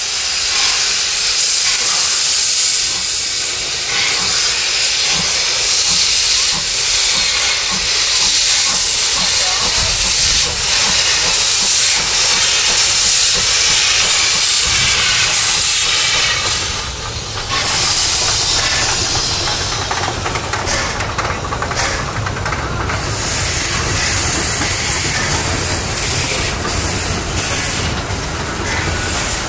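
Steam locomotive No. 1067, a Brünig line HG 3/4 rack-and-adhesion engine, hissing loudly with escaping steam as it moves slowly past with its train. A low rumble of the carriages rolling over the rails comes in partway through.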